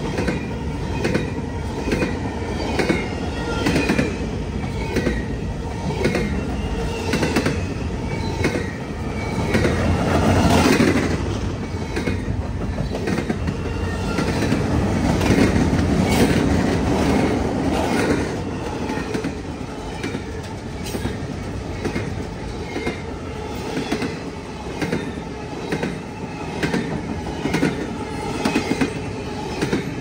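Freight cars of a long CN train rolling past close by, the wheels clicking over rail joints in a steady rhythm of about two clicks a second under a continuous rumble. A high wavering wheel squeal sounds over the first several seconds.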